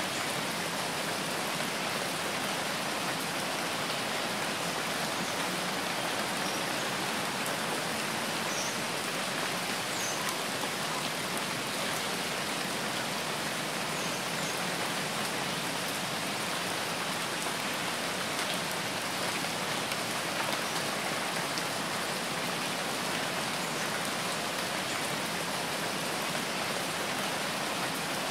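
Steady rain falling: an even, unbroken hiss of rain with a few faint scattered drop ticks.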